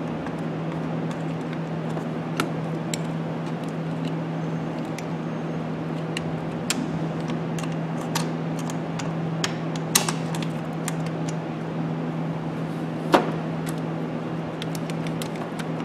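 Heavy metal clamps of a battery tester's leads clicking and knocking as they are worked onto a car battery's side-post terminals: scattered sharp clicks, a couple louder than the rest, over a steady low hum.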